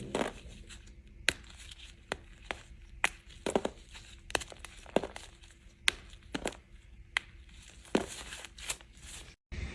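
A knife cutting dry bar soap: about a dozen sharp, crisp cracks, roughly one every half second to second, with soft scraping between them. The sound cuts out briefly near the end.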